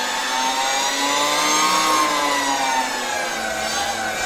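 Harley-Davidson LiveWire electric motorcycle's motor whining under way, a whine of several tones that rises in pitch for about two seconds, sinks lower around three and a half seconds in, then climbs again at the end as the bike speeds up, eases off and speeds up again.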